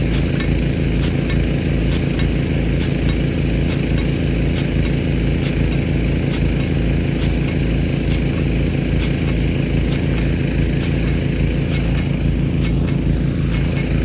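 Nelson P150 big gun sprinkler running, its water jet giving a steady hiss over a loud, even, engine-like drone, probably the pump supplying it. Faint regular ticks come about twice a second.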